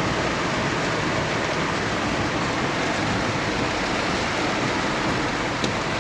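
Heavy rain falling steadily, an even wash of noise.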